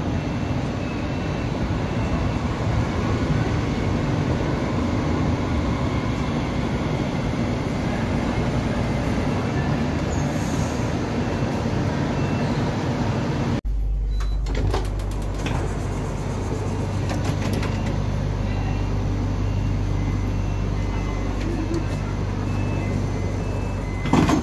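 Trains at a station: one train running with a steady rumble and a few held tones, then, after an abrupt change about halfway through, a steady low hum from a train standing or moving slowly, with a couple of sharp clicks near the end.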